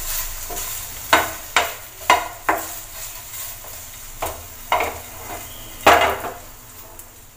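A spoon stirring in a metal cooking pan, knocking and scraping against it about eight times at irregular intervals, some knocks ringing briefly, over a faint hiss.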